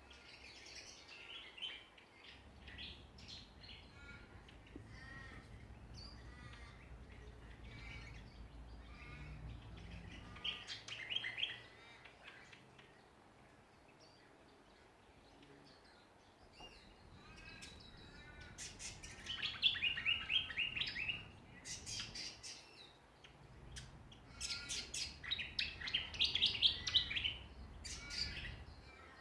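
Songbirds calling and chirping, with louder bursts of rapid chirp series near the middle and twice near the end.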